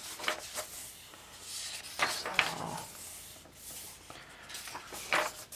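Pages of a paperback coloring book being turned by hand: a few short paper swishes, near the start, about two seconds in and about five seconds in.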